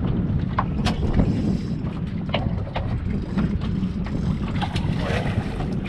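Wind buffeting the microphone on an open fishing boat, a steady low rumble, with scattered small clicks and knocks.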